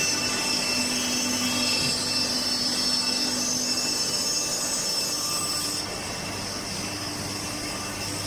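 Double end tenoner running: a steady industrial machine noise with a high whine from its spinning cutter heads, easing a little about six seconds in.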